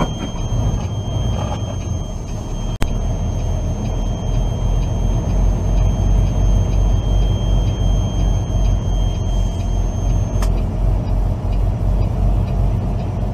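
Semi-truck's diesel engine and road noise heard from inside the cab while driving: a steady low rumble that gets louder about four seconds in. A thin high whine runs underneath and cuts off about ten seconds in, and there is a single sharp click near three seconds.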